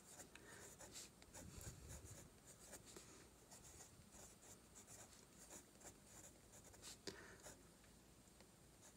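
Faint scratching of a pencil writing letters on sketchbook paper, in many short strokes.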